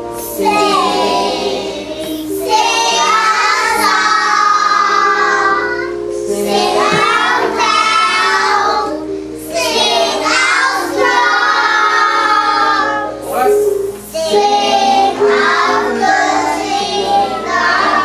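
A group of young children singing a song together in short phrases, over a steady instrumental accompaniment.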